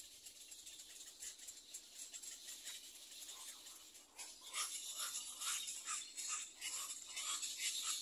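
Dry, rapid rasping and rattling bird calls, faint at first and growing louder and busier about halfway through.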